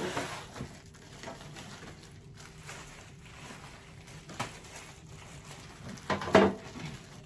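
Rustling and scattered light knocks as the rack's pieces and their packaging are handled, with a louder thump about six seconds in.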